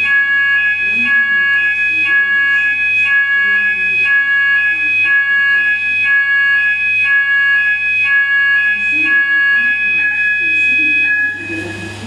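Railway station fire alarm sounders under test: an electronic alarm tone switching back and forth between two pitches at an even rhythm, cutting off suddenly about eleven seconds in.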